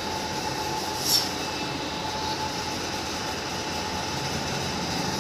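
Steady hum and whine of running workshop machinery, with a single short clink about a second in.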